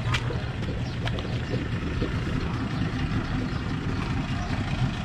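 Motorboat engine running with a steady low rumble.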